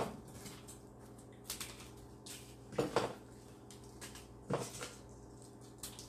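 A few scattered light knocks and clinks of kitchenware and utensils being handled on a tabletop; the loudest comes right at the start and another about three seconds in.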